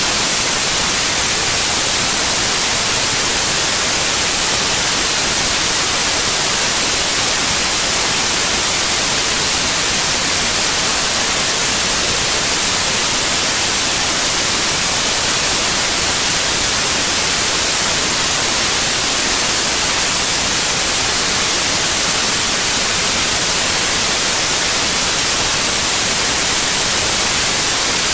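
Steady, loud hiss of static, even and unchanging, with no other sound in it.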